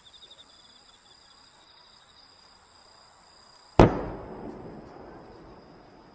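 A single loud firework bang about four seconds in, its echo rolling away over the next two seconds. Faint steady chirring of crickets runs underneath.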